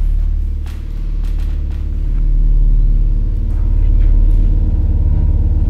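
Deep, low rumbling drone from a sound-design score: steady low tones that swell slowly and pulse, with a few faint clicks over it.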